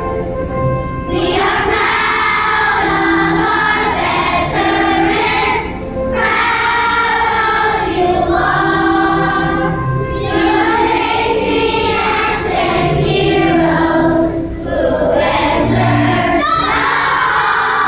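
Children's choir singing a song in unison with instrumental accompaniment, in phrases with short breaths between them.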